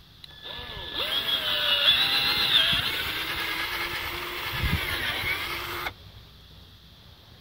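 Cordless drill turning an auger bit down into dry soil to bore a planting hole. The motor whine builds over about a second, wavers and sags in pitch as the bit works under load, then cuts off suddenly about six seconds in.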